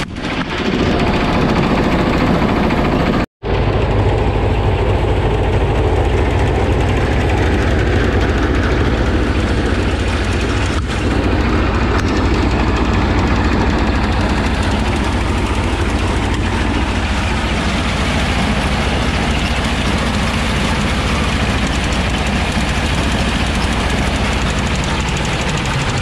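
Small single-cylinder diesel engine running steadily under load, driving a belt-driven paddy drum thresher as bundles of rice stalks are fed into it. The sound drops out completely for a moment about three seconds in.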